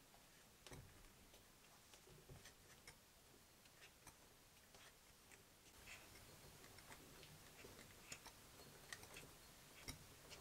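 Faint, irregular light clicks and ticks from a miniature 32cc inline four-cylinder engine as its flywheel is turned over by hand; the engine is not running.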